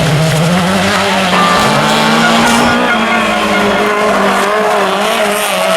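Rally car engine revving hard under acceleration. Its pitch climbs for about two and a half seconds, then holds high with small rises and falls.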